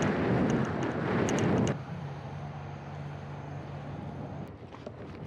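Road vehicle noise: a loud rush for about the first two seconds, then a quieter steady hum with a low drone and a thin high whine, which stops about four and a half seconds in.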